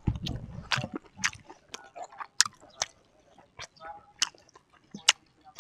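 Close-up eating sounds: wet lip smacks and mouth clicks while chewing grilled chicken and rice, coming irregularly, about two a second. A low rumble under the first second and a brief voiced hum around the middle.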